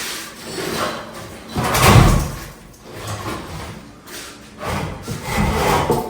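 Irregular scraping and knocking of heavy broken concrete debris being shifted, in several uneven swells, the loudest about two seconds in.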